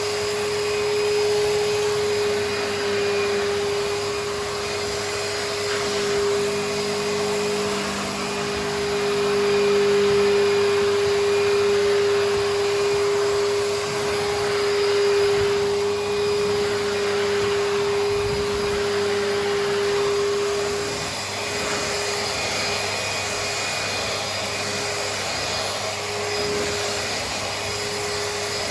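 Numatic George wet-and-dry vacuum running while wet-cleaning carpet: a steady motor whine over a rush of suction, growing louder and softer as the tool is worked, the whine wavering in the last few seconds.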